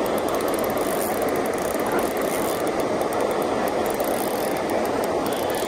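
Steady rush of fast-flowing, flood-swollen water, even and unbroken throughout.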